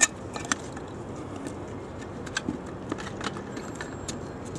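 Scattered light clicks and knocks of a door being unlocked and opened, the sharpest at the very start and about half a second in.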